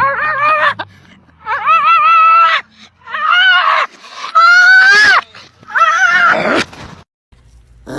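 A dog howling and whining in five loud, high-pitched cries of about a second each, each rising then falling in pitch.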